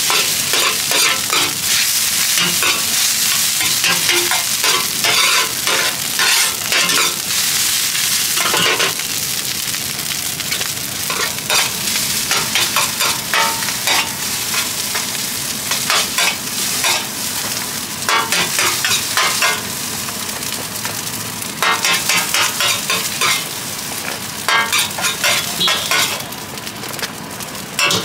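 Fried rice sizzling on a wide, shallow black metal pan, with a metal spatula scraping and clattering against the pan in runs of quick strokes as the rice is stirred and scooped up.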